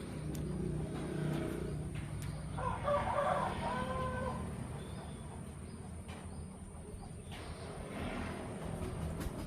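Chickens calling, with one longer pitched call from about three seconds in, over a steady low rumble.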